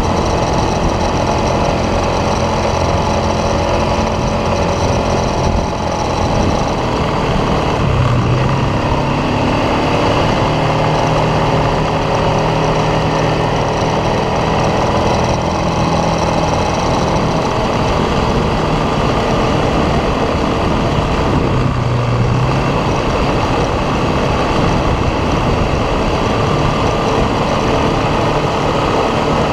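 ATV engine running steadily under way, its pitch slowly rising and falling as the throttle changes.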